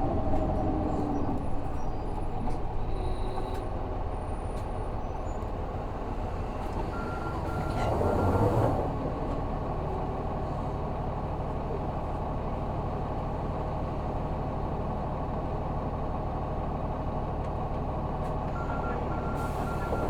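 Isuzu 6HK1 straight-six diesel of a city bus idling steadily, heard from inside the cabin. About 8 seconds in, and again near the end, a short run of beeps comes with a brief hiss of compressed air.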